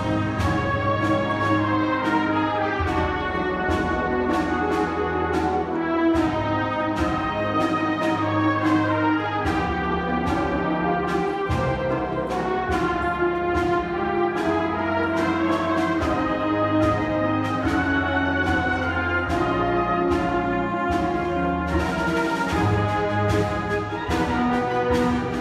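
School concert band playing live: woodwinds and brass sound sustained chords under a moving melody, with many short attacked notes.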